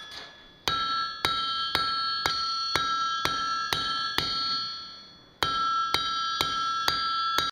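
Blacksmith's hammer striking hot steel on an anvil, about two blows a second, with the anvil ringing on between blows. After a run of about nine blows there is a pause of a second, then five more.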